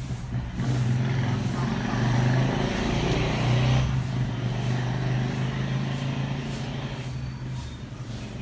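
Steady low engine hum, like a motor vehicle running, with extra noise between about one and four seconds in.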